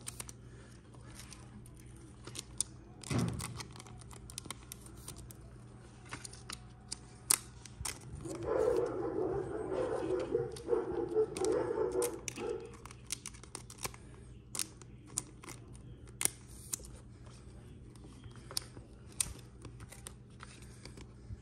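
Football trading card hanger pack being opened and its cards handled: scattered sharp clicks and paper-plastic rustles, a knock about three seconds in, and a longer stretch of tearing and crinkling from about eight seconds in.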